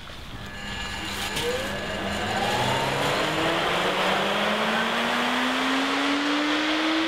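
Electric high-performance smoke-ventilation fan switched on and spinning up: a rising whine and a building rush of air that levels off into a steady loud blow about three seconds in, while a lower hum keeps slowly rising.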